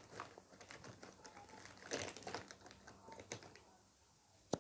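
Small plastic clicks and taps from handling a lip gloss tube and its applicator wand, with one sharper click near the end.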